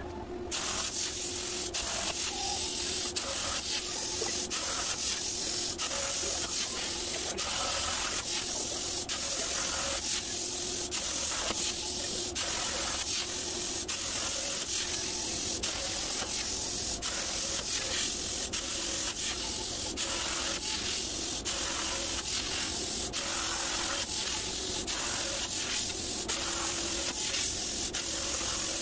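CNC plasma cutter torch cutting steel plate, a loud steady hiss of the arc and its air that starts about half a second in and runs on evenly.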